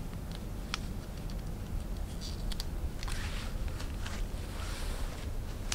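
Faint clicks and rustling of a metal buckle and shiny strap being fastened around the ankle of a high-heel sandal, over a low steady hum.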